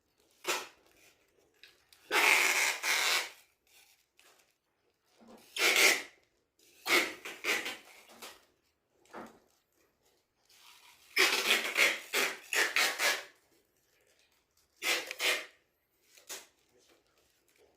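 A series of irregular rubbing and scraping noises, like objects being handled and shifted. The longest stretches come about two to three seconds in and from about eleven to thirteen seconds in.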